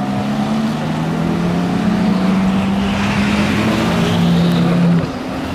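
Ferrari F430's V8 engine running hard at a nearly steady pitch as the car drives away. The note breaks off about five seconds in.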